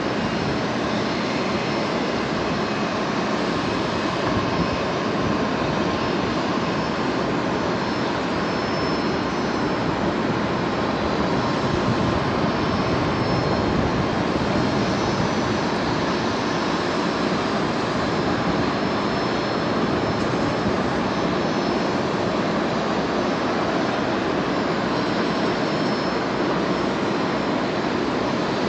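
Jet engines of taxiing airliners running at taxi power: a steady rumble with a faint whine on top.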